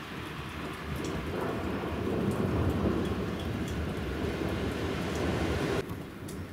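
Thunder rumbling over steady rain. The rumble builds about a second in, is loudest around the middle, and cuts off abruptly near the end.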